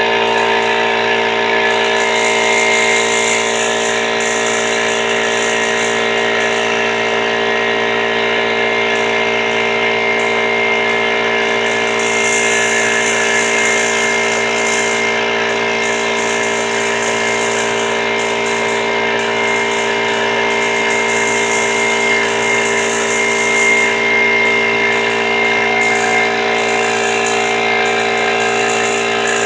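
Harbor Freight 21-gallon oil-lubricated air compressor running steadily under load, its pump and motor giving a loud, constant drone with a whine and a hiss.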